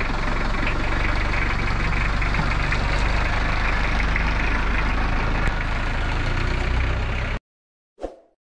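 Mitsubishi L300 pickup truck's engine running steadily, cutting off abruptly near the end, followed by a brief sound effect.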